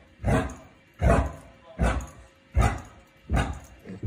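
A dog barking over and over at an even pace, about five barks a little more than one a second.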